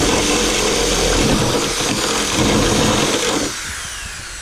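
Power drill running at full speed, boring through the car hood's sheet metal to widen pilot holes to full size. It stops about three and a half seconds in and winds down.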